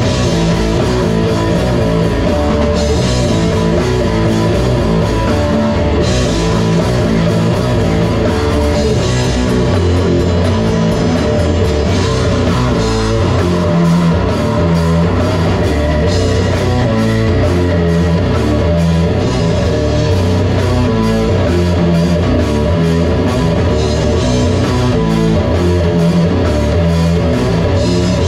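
A band playing loud heavy rock live, with electric guitars through amplifiers and a drum kit with cymbals, continuous throughout.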